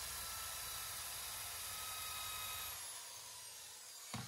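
Electric drill with a wire brush in its chuck running steadily, driving a hoop of abrasive cloth around a stainless steel exhaust pipe with a hiss. About three seconds in it is let go and winds down with a falling whine, and a sharp knock follows near the end.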